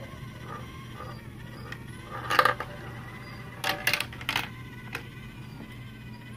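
Marbles clattering through plastic marble-run track in a quick cluster of clicks about two and a half seconds in and again around four seconds in, over the steady low hum of the motorised chain elevator.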